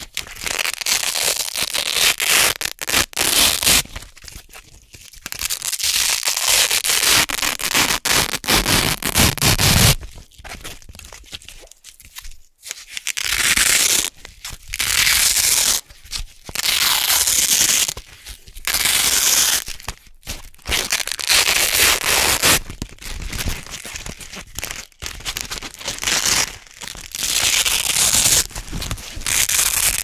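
Wide hook-and-loop (Velcro) strips being peeled apart by hand again and again, a crisp, crunchy ripping in bursts of one to two seconds with short pauses between.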